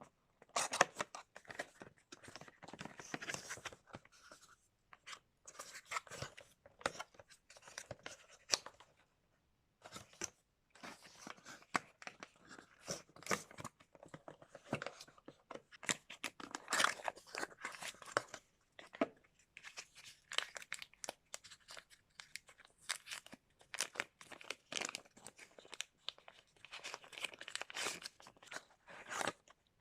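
Packaging being opened and handled: tearing, crinkling and scraping of cardboard and plastic with frequent sharp clicks and taps, in irregular bursts with a few brief pauses.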